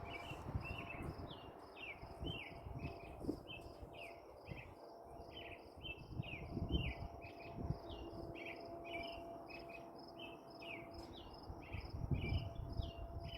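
Insects chirping in a steady, even rhythm, a few short high chirps a second, over irregular low rumbles.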